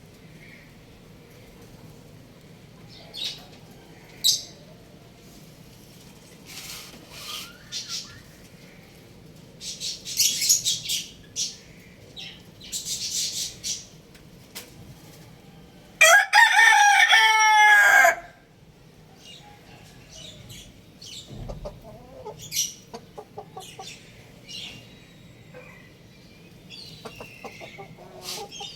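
Young rooster crowing once, a loud call about two seconds long around the middle, with chicks chirping in short high peeps before and after.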